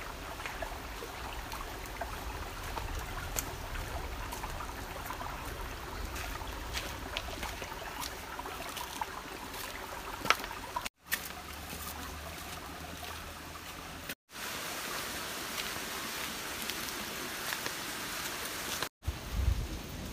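Shallow forest stream trickling over rocks, a steady hiss of running water. Scattered light clicks of footsteps on the stream stones come through in the first half.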